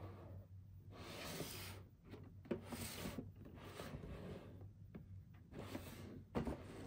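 Cardboard toy box being handled and turned over on a tabletop: soft rubbing and sliding swishes, with a light knock about two and a half seconds in and a sharper one near the end.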